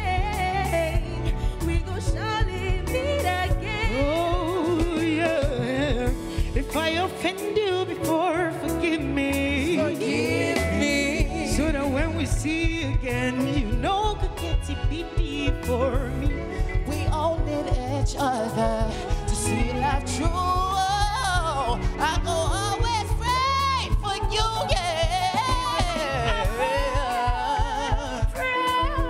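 Live solo singing over backing music with a steady bass beat: women's voices lead, one after another, with wavering, curving vocal runs and ad-libs rather than plain sung lines.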